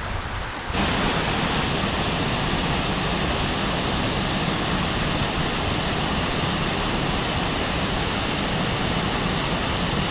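Rushing water of a mountain river, a steady loud rush that steps up louder about a second in.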